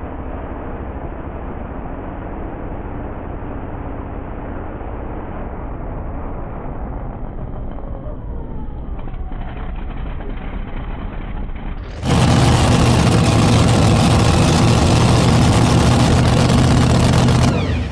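A twin-engine light modified pulling tractor's engines running hard. For the first twelve seconds the sound is muffled and dull, with some rising revs. About twelve seconds in it cuts abruptly to a much louder, close, full-throttle engine sound, which drops away near the end.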